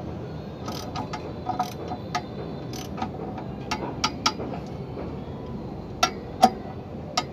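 Ratchet wrench and socket clicking and clinking on the bolts of a clutch pressure plate, in irregular metallic clicks, with two louder metal knocks close together near the end.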